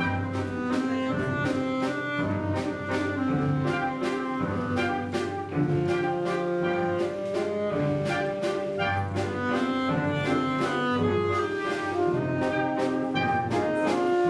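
An orchestra playing a lyrical waltz: held melody and bass notes over a steady, even beat.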